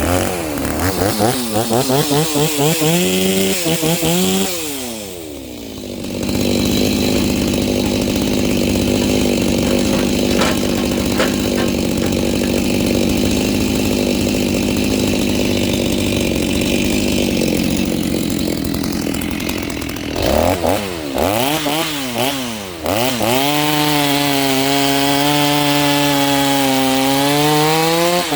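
Stihl MS 390 two-stroke chainsaw with a Hipa rebuild kit, revved in quick blips and then held at full throttle in a long steady run of about fourteen seconds. Near the end it is blipped again and then held at a lower, slightly wavering pitch.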